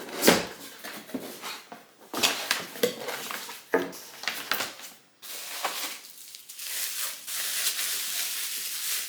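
Packaging being handled while a light fixture is unpacked: scattered knocks and clicks of the box and parts, then a steady rustle of wrapping from about five seconds in.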